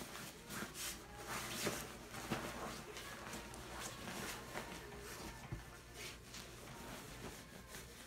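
Standard poodle rolling and wriggling against pillows on a bed: irregular soft rustling and scuffing of fabric.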